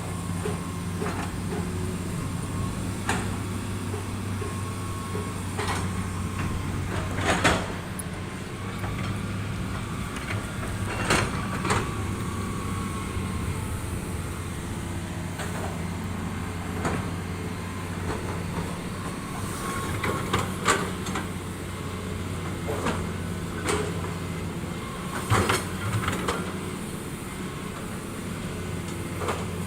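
Diesel engine of heavy construction machinery running steadily at a low hum, with irregular sharp metallic clanks and knocks over it.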